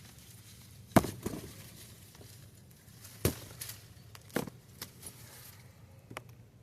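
Hand-harvesting grapes on the vine: a handful of short, sharp clicks and snaps from picking the clusters, the loudest about a second in and again a little after three seconds.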